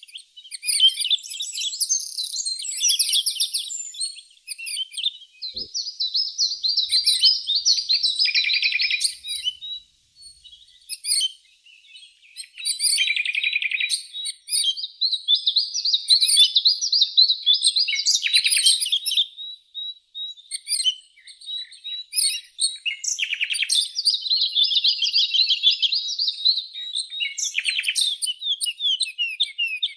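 Songbirds singing: long, fast warbling and trilled phrases a few seconds each, with short breaks between them.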